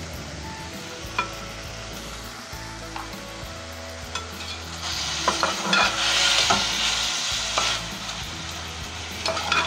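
Chicken pieces frying in oil in a metal pan, sizzling while they are stirred with a slotted metal spatula that clicks and scrapes against the pan. The sizzle grows louder from about five seconds in as the pieces are turned.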